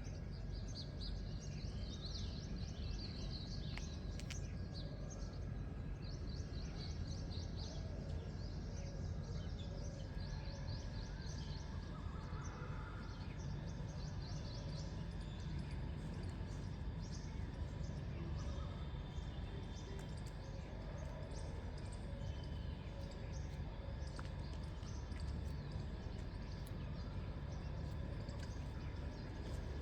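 Outdoor dawn ambience: small birds chirping and calling over a steady low rumble of background noise, with the chirping busiest in the first ten seconds or so.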